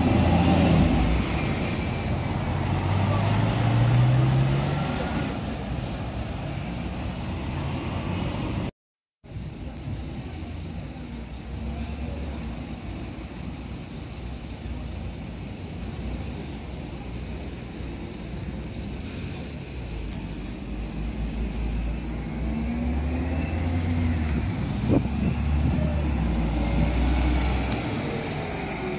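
City bus engines pulling away from a terminal: an articulated bus accelerates off with its engine note rising over the first few seconds. After a brief dropout, a steady traffic rumble continues, and a second bus revs up and drives off near the end.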